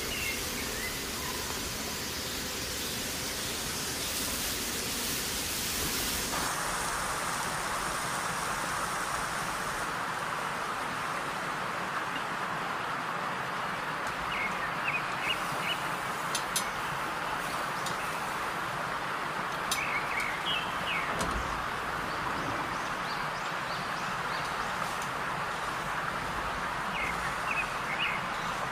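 Steady hissing noise that changes in tone about six seconds in, with a few sharp crackles and short chirps in the second half.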